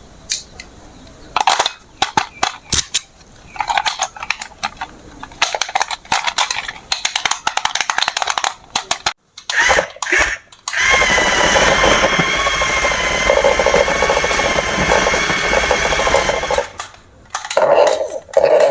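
Hard plastic toy parts being handled, with many sharp clicks and knocks. About eleven seconds in, a loud steady sound with wavering high tones starts, runs for about six seconds and cuts off, likely from the toy itself; then more knocks.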